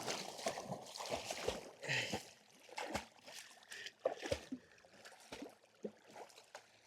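Lake water splashing and sloshing in irregular small splashes as a dog paddles in shallow water, busier at first and easing off toward the end.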